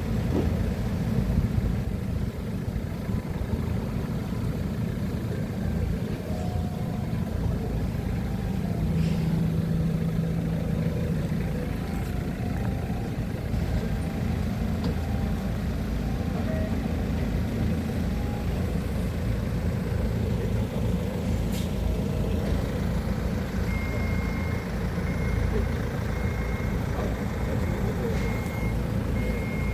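Heavy-equipment engine running steadily. In the last several seconds a reversing alarm starts beeping, roughly once a second.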